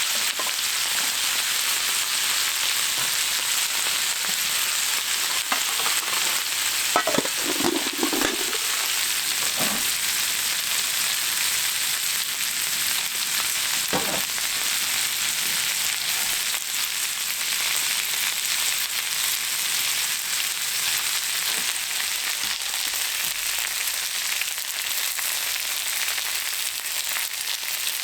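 Food frying and sizzling in a hot pan, a steady hiss, with a few short louder sounds about seven to eight seconds in and again around fourteen seconds.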